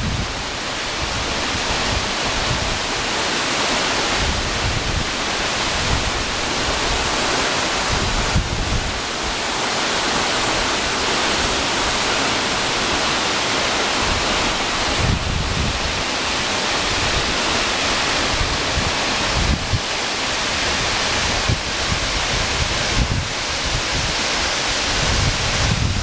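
Waterfall pouring into its plunge pool: a loud, steady rush of falling water. Now and then wind buffets the microphone with low rumbles.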